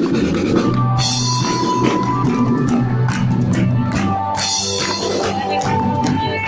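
Live worship band playing a song with drum kit, bass and guitar, loud and steady, with sustained melody notes over the beat.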